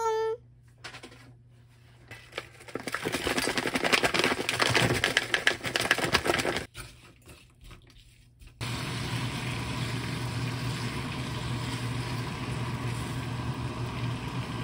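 Duck meat and sliced onion frying in a nonstick pan: a loud crackling sizzle from about three seconds in to about seven seconds in, then after a short break a steadier, even sizzle with a low hum under it. A brief rising tone sounds right at the start.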